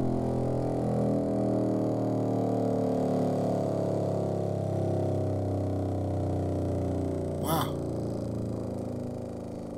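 TORO Tech Force 8 8-inch subwoofer running free air on about 500 watts, playing a downward sine bass sweep. The tone falls slowly from the low 40s of hertz towards the upper 20s and is heard mostly as a buzzy stack of overtones, growing quieter as the pitch drops. A brief sound cuts in near the end.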